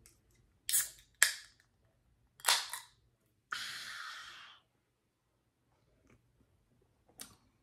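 Can of Dr. Zevia soda being handled and opened: a few sharp clicks and cracks, then a fizzing hiss of about a second.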